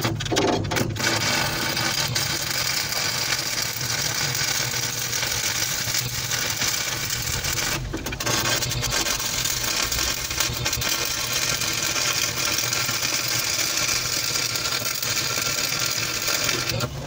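Stick-welding arc crackling steadily as an electrode burns onto the steel floor. The arc breaks briefly about eight seconds in, then picks up again.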